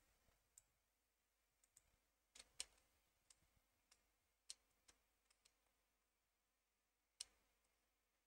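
Faint, sharp, irregular clicks of a computer mouse and keys, about a dozen, with the loudest pair about two and a half seconds in.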